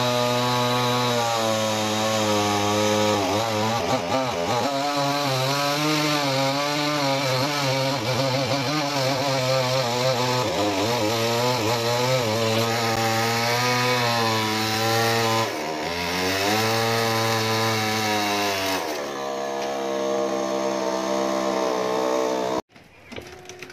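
Two-stroke gasoline chainsaw cutting through a large log, its engine pitch wavering up and down as the chain bites into the wood. The saw cuts off suddenly near the end.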